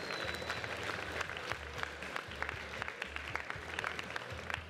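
Audience applauding: a dense patter of many hands clapping at once, dying down near the end.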